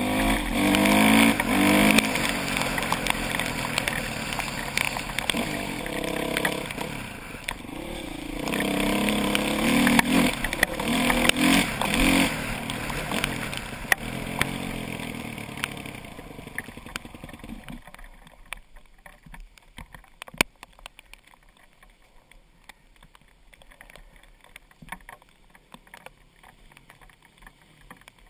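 Off-road motorcycle engine running and revving up and down as it rides, heard close up from the bike. About two-thirds through, the engine sound tails off and cuts out abruptly, leaving only faint ticks and rattles.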